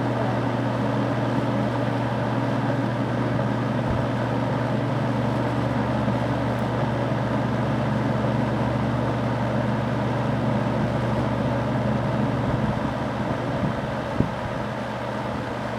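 20-inch Superlectric box fan running on high speed: steady air noise over a low motor hum. Near the end it eases off a little and there is one sharp click.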